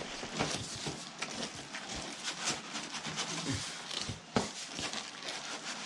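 Cardboard box and styrofoam packing being handled and pulled apart: a run of short scrapes, rustles and crackles, with one sharp knock about four and a half seconds in.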